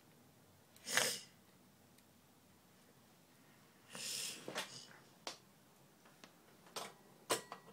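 Quiet room broken by two short breathy puffs, about a second in and about four seconds in, then a few light clicks and knocks near the end as the soldering iron and tools are handled on the bench.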